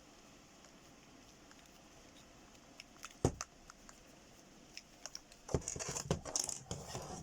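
Plastic headphones being handled: a sharp knock about three seconds in, a few light ticks, then a quick run of clicks and rustling near the end.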